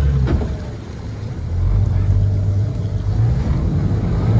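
Twin Yamaha outboard engines running at low speed in gear, churning the water with prop wash as the boat is manoeuvred on joystick control. The engine note drops about a second in, then builds again.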